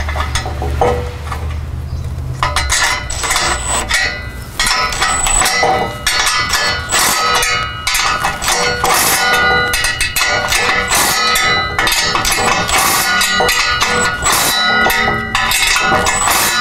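Background music made of many short, ringing pitched notes. A low, steady hum sounds under it for the first couple of seconds and then stops.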